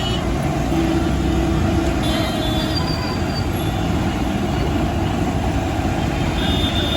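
Steady low rumble of street traffic, with a faint high whine about two seconds in and again near the end.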